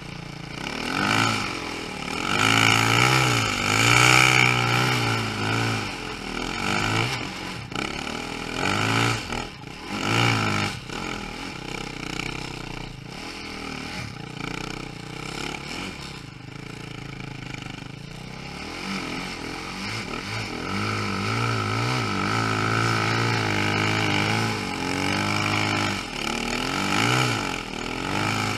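2013 KTM 450 SX-F snow bike's single-cylinder four-stroke engine being ridden through powder. The revs rise and fall over and over with the throttle. It is loudest in the first few seconds and again in the last third, and eases off in between.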